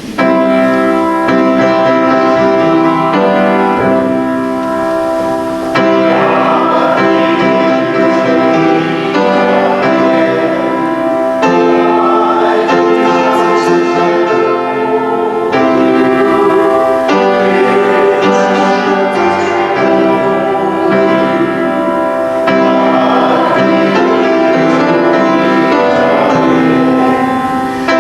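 A hymn sung by a group of voices with keyboard accompaniment, held chords changing every few seconds.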